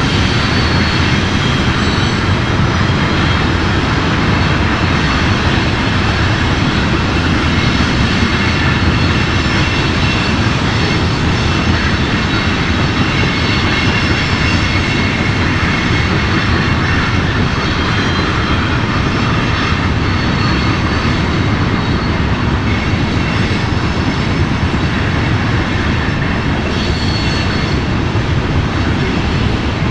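Multirotor camera drone's propellers and motors whirring steadily, with a faint high whine over the noise.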